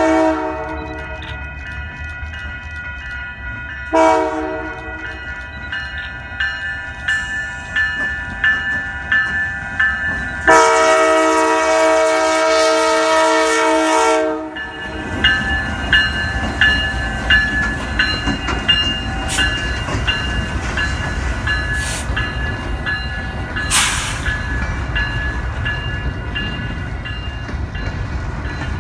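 Canadian Pacific diesel locomotive sounding its multi-chime air horn in the grade-crossing pattern: the end of a long blast, a short blast about four seconds in, then a final long blast of about four seconds. A crossing bell rings steadily throughout. From about halfway the locomotive's diesel engine rumbles past close by, with a few sharp clanks from the wheels and cars.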